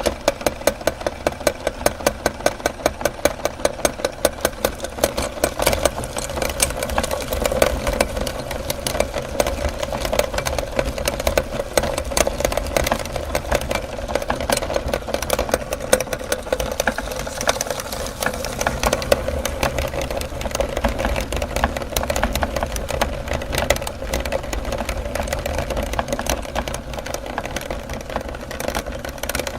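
Electric meat grinder running and grinding, with a quick series of regular knocks over the first several seconds, then a steady motor-and-grinding sound.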